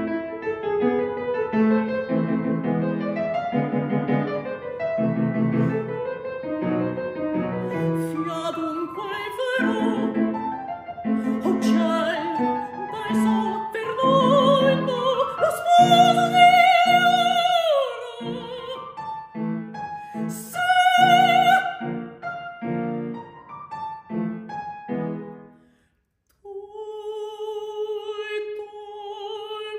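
A piano plays an introduction, then a mezzo-soprano comes in singing an opera aria over the piano, holding long notes with wide vibrato. Near the end the music stops briefly, then she resumes on a long held note.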